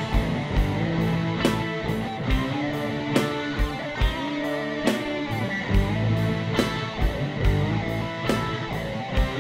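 Music with guitar over a steady drum beat.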